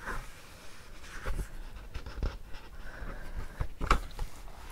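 Soft, irregular scratching and light tapping close to a sensitive microphone, with several sharper clicks scattered through, the trigger sounds of a close-up ASMR recording.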